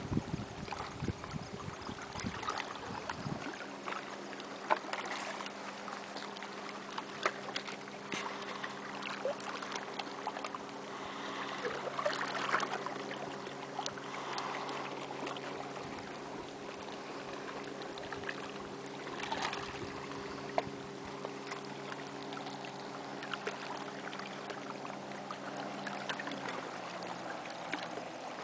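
Small waves lapping and splashing against shoreline rocks, with soft irregular splashes and clicks. Under them a steady low motor hum comes in a few seconds in and stops near the end. Wind rumbles on the microphone at first.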